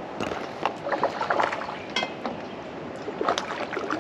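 Splashing and irregular knocks and rattles as a freshly caught crappie is handled in a landing net aboard a kayak.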